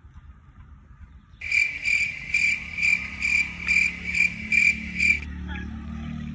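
Cricket chirping in a steady rhythm of about two chirps a second, starting about a second and a half in after a near-silent moment and stopping a little after the five-second mark.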